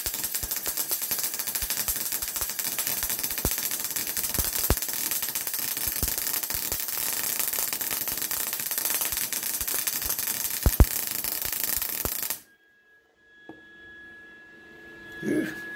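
MIG welder arc crackling steadily as a weld bead is run, then cutting off suddenly about twelve seconds in. Afterwards only a faint steady hum remains.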